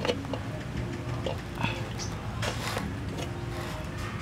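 Snail shells clicking and knocking against one another in a bowl as they are handled: several separate knocks, with a larger rattle about halfway through.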